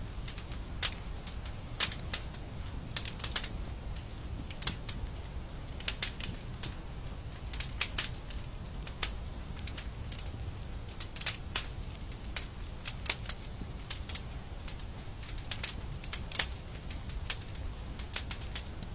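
Wood fire crackling, with irregular sharp pops and snaps a few times a second over a steady low rumble of the flames.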